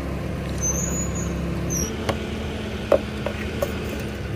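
An engine idling steadily; its note shifts slightly about two seconds in. Short high-pitched metal squeaks come in the first two seconds, then a few sharp clicks.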